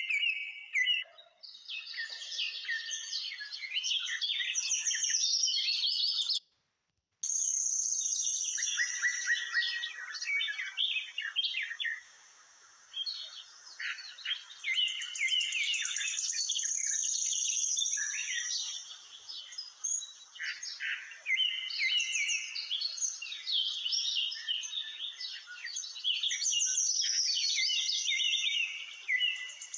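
Many small birds chirping, a busy chorus of short high calls and trills, with a brief full dropout about six and a half seconds in.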